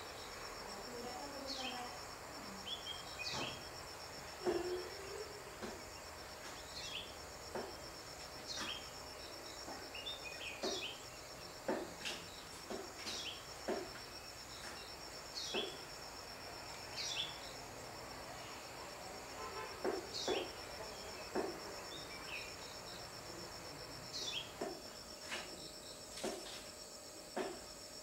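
An insect trills steadily at a high pitch, with short falling bird call notes repeated every second or two over it.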